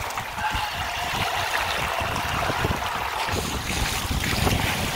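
Small waves washing over the shallows of a sandy beach, with wind rumbling on the microphone.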